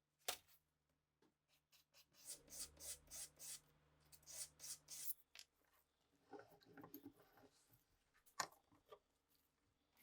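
Faint, short rubbing and scraping strokes, in quick runs, with a few sharp clicks: hand work on old pistol parts.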